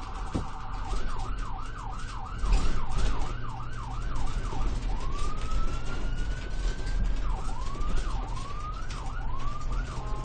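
Electronic ambulance siren changing modes: a very fast warble, then a yelp of quick rising-and-falling sweeps about three a second, then one long rising wail that cuts off, then the yelp again. A steady low vehicle rumble runs underneath.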